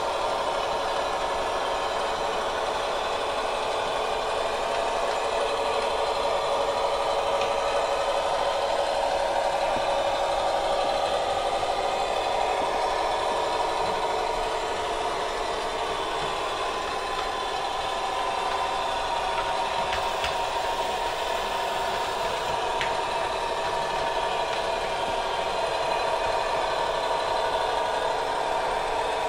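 An ESU sound decoder in an H0 model of a DB class 704 tower railcar plays its diesel engine sound through the model's small loudspeaker as the model drives. The sound runs steadily, with a slight shift in pitch about a quarter of the way in.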